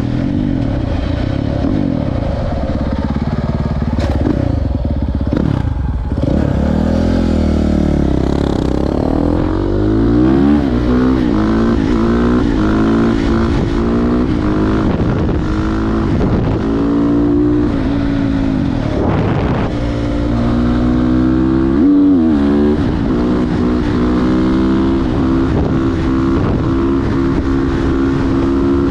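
KTM 450 SMR supermoto's single-cylinder four-stroke engine through an Akrapovic exhaust, under way: the revs climb and drop back again and again as it accelerates and changes gear, with a deep dip and pick-up early on and a steadier pull near the end.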